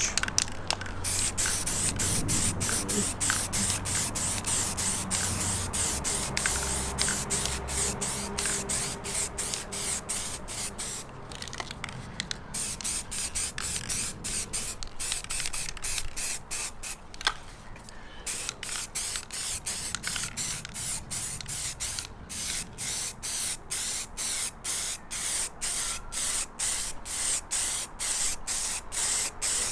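Aerosol can of gloss black spray paint hissing in many short spurts with brief breaks between them as a coat is sprayed onto a plastic grille.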